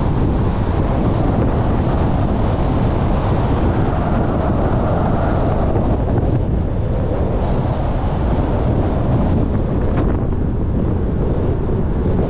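Steady wind and road noise from a car driving, rushing and heavy in the low end, with wind buffeting the microphone.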